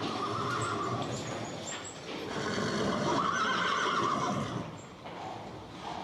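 Horse whinnying: two long calls, the second, starting about two seconds in, louder and longer.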